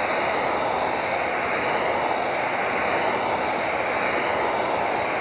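Handheld heat gun blowing a steady stream of hot air, warming a phone's back glass to set freshly laid double-sided adhesive tape.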